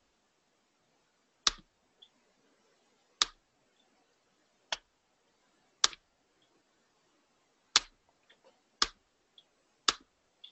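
Sharp single clicks from someone working a computer: about seven clicks, spaced one to two seconds apart, with a few fainter ticks between them.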